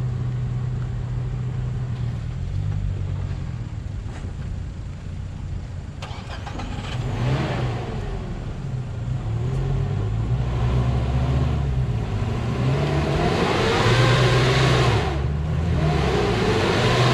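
Nissan Terrano 4x4's engine working under load as it crawls over rough, rutted dirt, its revs rising and falling with the throttle. It pulls hardest, and is loudest, about three quarters of the way through.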